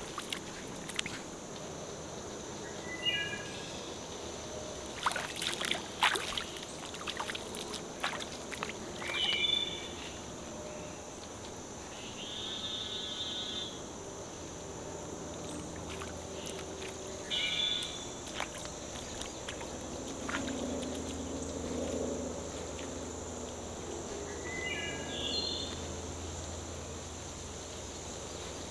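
Swampy woodland ambience: a steady high insect drone, with a bird repeating a short call of a few notes stepping down in pitch every several seconds. In the first several seconds, bare feet splash and squelch through shallow muddy water.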